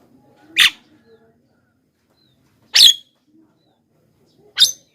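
Javan myna giving three short, loud, harsh calls about two seconds apart.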